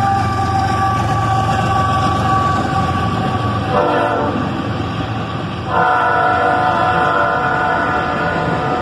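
Freight locomotive air horn sounding a series of long chord blasts that run into one another, over the low, steady rumble of the diesel locomotives' engines.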